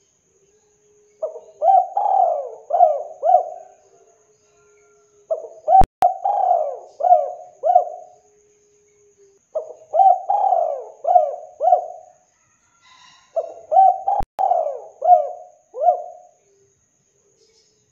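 Spotted dove (tekukur) cooing: four phrases of several quick coos each, a phrase starting about every four seconds with short silences between.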